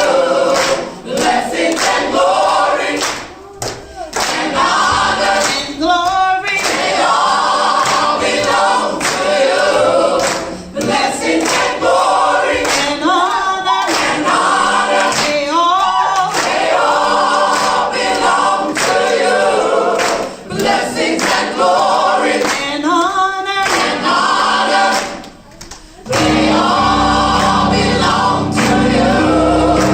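Gospel choir singing a cappella in full harmony, with regular hand claps keeping the beat.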